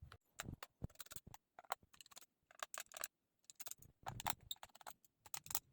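Faint, irregular small clicks and ticks of a screwdriver working the screws out of a laptop's plastic bottom case.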